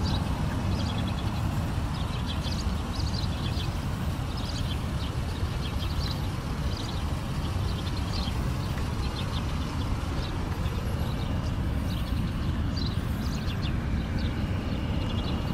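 1996 Toyota Crown S150 idling, heard at the tailpipe of its single exhaust: a steady low rumble, with faint high chirps scattered over it.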